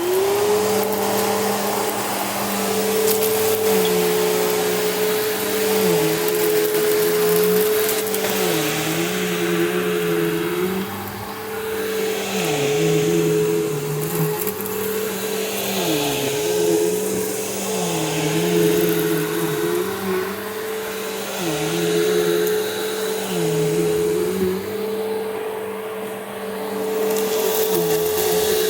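2003 Simplicity Symmetry upright vacuum cleaner spinning up at the very start and then running with a steady whine, while a lower hum dips briefly and recovers every second or two as it is vacuuming up a mess.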